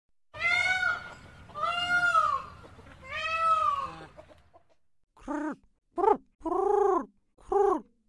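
Peafowl calling: three long, loud wailing calls, one after another, in the first four seconds. After a brief pause, about five seconds in, a rock dove gives four short coos.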